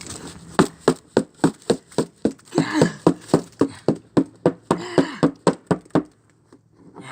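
Rapid, evenly spaced knocks or slaps, about three a second, with a few short voice-like sounds mixed in around the middle; they stop about a second before the end.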